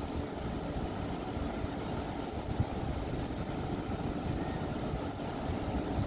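Steady, rumbling roar of surf breaking and whitewater rolling in, with no single wave standing out.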